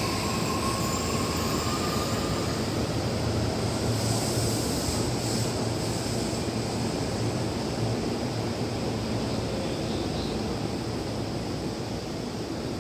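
JR E531-series electric commuter train pulling out of the station: a steady rumble and rush of running noise that eases slightly near the end.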